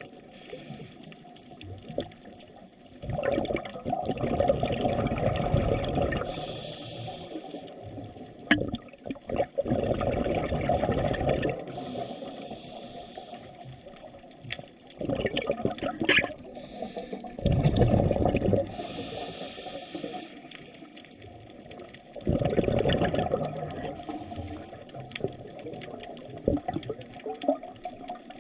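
Water surging and bubbling in about five noisy swells a few seconds apart, with quieter water noise between them.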